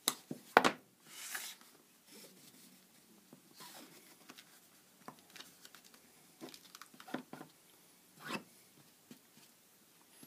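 Handling noise from glued bookcloth being pressed and smoothed down onto a board tray: scattered light rubs and small ticks. Two sharp knocks in the first second are the loudest sounds.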